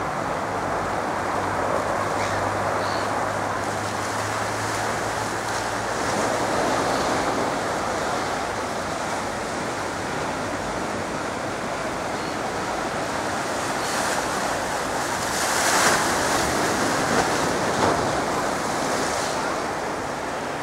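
Distant Gippsland GA8 Airvan's single piston engine and propeller at high power for takeoff, a steady rushing drone mixed with wind on the microphone. A low hum underneath fades out after the first few seconds, and the sound swells in a few gusts near the end.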